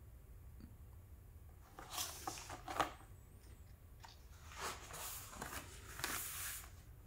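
Paperback book being handled: soft rustling and brushing of the cover as it is turned over about two seconds in, then a longer stretch of paper rustling as the cover is opened and the pages are pressed flat.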